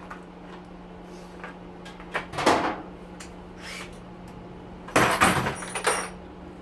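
Knocks and clattering of objects being handled or moved: one loud knock a little over two seconds in and a burst of sharp rattling impacts around five seconds in, over a steady low hum.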